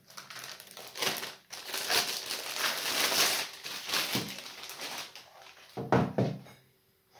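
Clear plastic bag crinkling as it is pulled off the drive unit and crumpled, with a couple of handling knocks about six seconds in.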